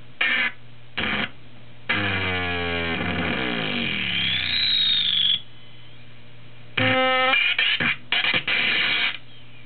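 Circuit-bent Kawasaki toy keyboard playing electronic notes: a few short blips, then a long distorted tone whose pitch slides steadily downward for about three seconds, bent by the added pitch knob, then a run of quick stabbed notes near the end. A low electrical hum sits underneath throughout.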